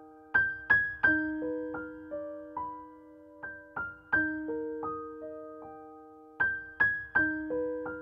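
Background piano music: a gentle melody of single struck notes that ring and fade, the phrase repeating about every three seconds.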